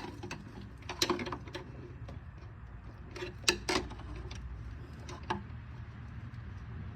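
Bare washing-machine drive motor and transmission running with a steady low hum, with several sharp clicks and clunks as the shift actuator is moved from spin into agitate.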